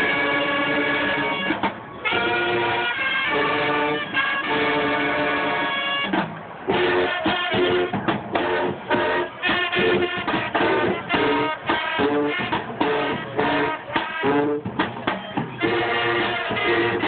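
Music: long held notes for about the first six seconds, then a quicker run of short, choppy notes.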